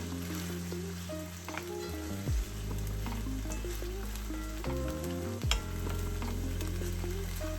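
Food sizzling in a frying pan with occasional light clicks, over background music that has held bass notes and a short downward sweep twice.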